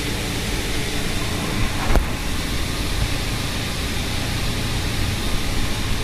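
GMC Acadia engine idling steadily, heard from inside the cabin, with one short knock about two seconds in. The vehicle is under diagnosis for a misfire and rough running.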